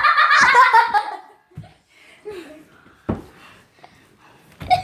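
Child's loud, high-pitched laughing squeal that falls in pitch over the first second, then quiet giggles and breaths with a single thump about three seconds in, and laughter starting up again at the very end.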